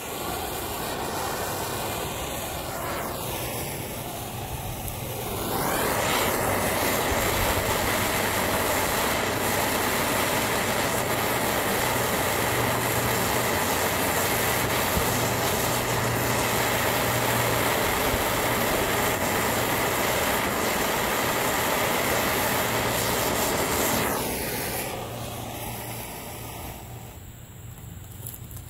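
Gas torch flame rushing steadily against a burning plastic computer mouse. It swells a few seconds in as the torch comes close, then fades near the end as the torch is taken away, leaving the quieter sound of the burning plastic.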